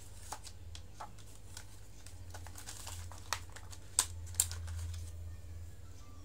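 Wooden colour pencils clicking against each other and rattling in their cardboard box as one is sorted out and picked, a few sharp clicks with the loudest about four seconds in. A steady low hum sits underneath.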